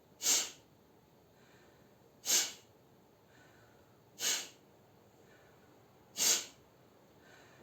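A person doing sneeze-like breathing: four sharp, forceful exhales through the nose, about two seconds apart, each after a faint breath in through the mouth. It is a breathing exercise that imitates a held-back sneeze to clear the nose and nasopharynx.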